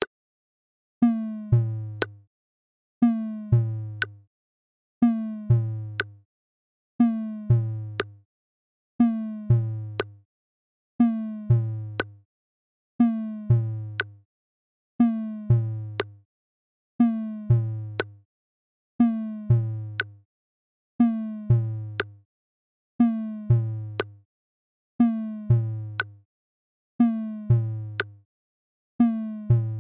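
Minimal electronic music loop: a sharp click, a synth tone gliding down in pitch and a deep kick-drum thud, repeated identically about every two seconds.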